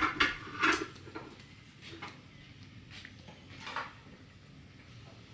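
Metal dishes and pans clinking and knocking as they are handled: two loud clatters in the first second, then a few lighter clinks spaced about a second apart.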